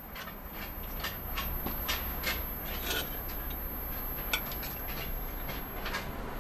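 Light clicks and taps of fingers handling a thin aluminium drink can as it is picked up and turned over, with one sharper tap a little past halfway, over a steady low hum.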